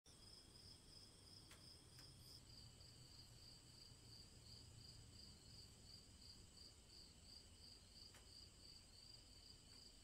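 Crickets chirping faintly: a steady high trill that pulses about three times a second.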